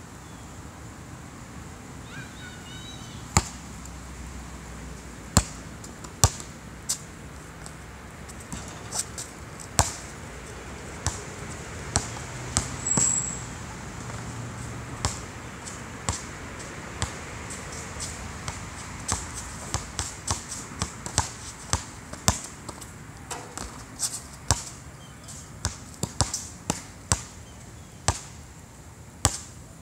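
Basketball bouncing on a hard outdoor court: a few scattered single bounces at first, then dribbling at about two bounces a second through the second half.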